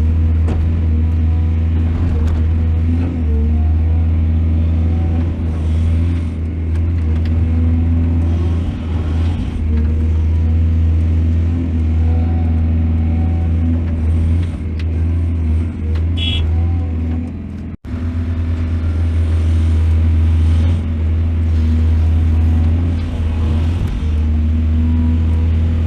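Excavator's diesel engine running steadily with a low drone. There is a brief high squeal about two-thirds of the way through, and the sound cuts out for an instant just after it.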